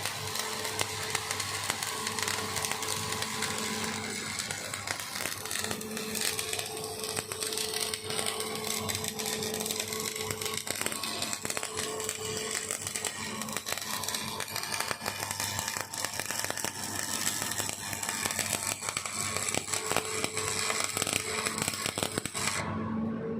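Electric arc welding: a steady arc crackle over the hum of the welding machine, the crackle stopping abruptly near the end while the hum goes on.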